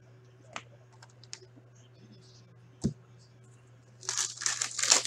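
A few light clicks as trading cards are handled, then, near the end, about a second of crinkling and tearing as a plastic hockey-card pack wrapper is ripped open. A low steady hum lies underneath.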